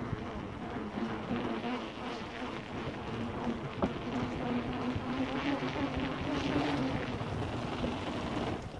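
Mountain bike rolling at speed along a wooden boardwalk, a steady buzzing hum with rushing noise and a few light clicks from the bike.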